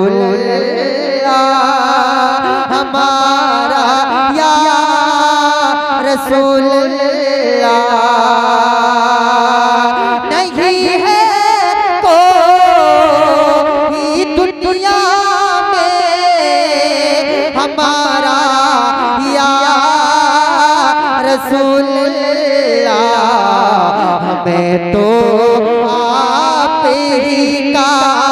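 A male naat reciter singing a long, drawn-out melismatic passage into a microphone, holding wavering notes for seconds at a time with no words clearly sung.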